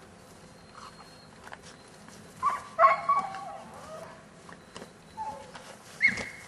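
Belgian Malinois puppy giving a quick run of high-pitched barks and yips about two and a half seconds in, then one more short, sharp yelp near the end.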